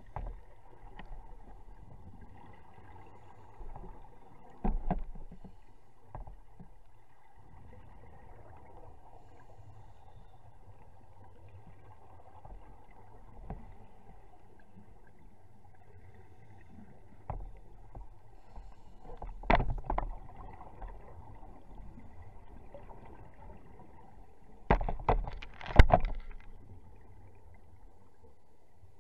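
Underwater recording on a scuba dive: a steady low hum, broken a few times by loud short bursts of rushing bubbles from a diver's regulator exhaling, the loudest cluster near the end.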